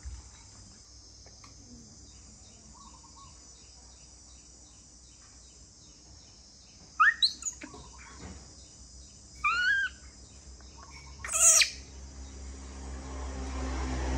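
Three short, high chirping calls, one rising quickly about seven seconds in, one curving call about two seconds later, and the loudest, briefest one near the end, over a faint regular high ticking. A low rumble swells in near the end.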